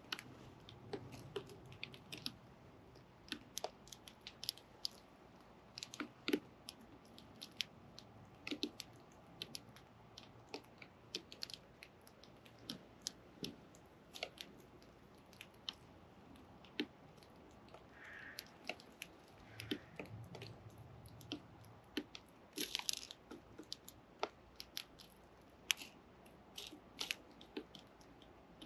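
Sparrow chicks pecking at food: faint, irregular sharp clicks, sometimes several a second, sometimes a second or more apart.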